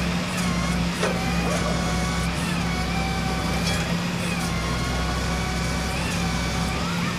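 Flatbed tow truck's engine and hydraulic winch running under load as the winch drags a pickup up the tilted bed: a steady hum over a deep rumble, with a whine that wavers up and down in pitch. The deep rumble drops away near the end.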